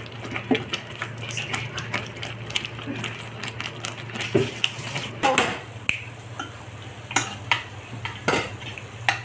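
Steel ladle scraping and clinking against a wok-shaped pan while stirring a thick masala paste as it cooks, with irregular sharp knocks. A steady low hum runs underneath.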